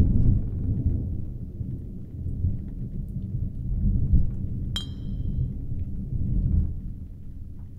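Low rolling rumble, with one sharp clink that rings brightly for about half a second, nearly five seconds in.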